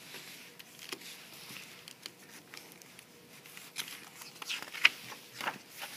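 Pages of a picture book being handled and turned: faint paper rustles and a few soft clicks, the loudest nearly five seconds in.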